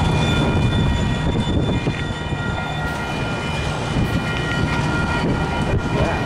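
Freight train rolling past: a steady, heavy rumble of locomotives and cars on the rails, with thin steady high tones held over it.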